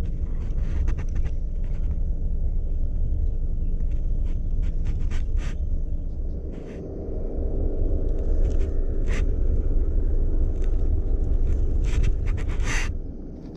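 Low rumble of wind and handling noise on an action camera's microphone, dipping briefly about halfway through. Scattered sharp clicks and scrapes come from the hands working a light spinning rod and reel.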